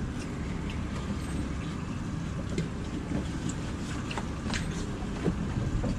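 Small fishing boat's engine idling steadily, with a few light ticks over it.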